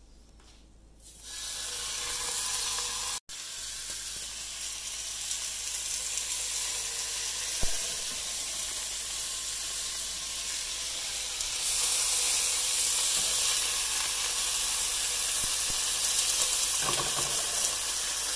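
Raw bacon strips sizzling in a hot frying pan: a steady hiss that starts about a second in and grows louder as more strips go in. There is one sharp click partway through.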